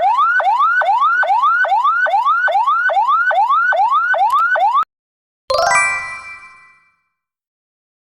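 Electronic emergency-vehicle siren, as on a US ambulance: a tone that rises quickly and drops back, repeating about twice a second, then cuts off suddenly about five seconds in. After a short pause comes a single bright ringing note that fades out over about a second.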